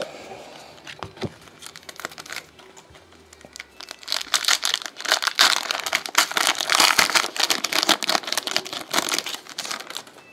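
Trading-card packaging crinkling as hands work it: a few scattered clicks at first, then a dense plastic-and-foil crackle from about four seconds in that runs until near the end.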